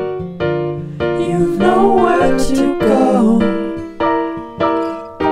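Outro background music: piano-like chords struck about twice a second, with a singing voice in the middle.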